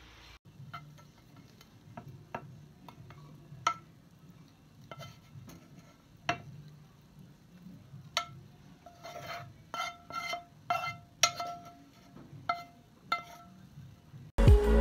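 Kitchen tongs clinking and scraping against a glass bowl while spaghetti is tossed: scattered sharp clicks, several ringing briefly like glass in the second half, over a low steady hum. Loud music comes in at the very end.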